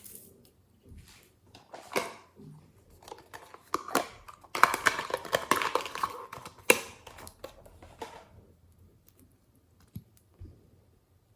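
Glossy slime being squeezed and pressed by hand, giving sharp sticky clicks and pops, with a dense run of crackling in the middle.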